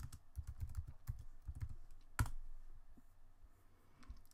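Computer keyboard typing: a quick run of keystrokes, then one louder keystroke a little after two seconds in, followed by a few faint clicks.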